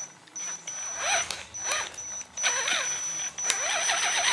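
Axial SCX10 RC crawler's electric drivetrain driven in short throttle pulses, the motor whine rising and falling several times over a steady high whine, with the popping from the drivetrain. The uploader traced the pop to worn-out stock drive shafts.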